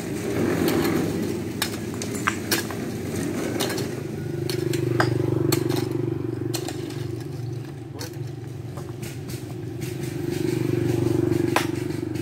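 An engine drones steadily, swelling louder twice, with sharp clinks and knocks of stones and tools struck over it.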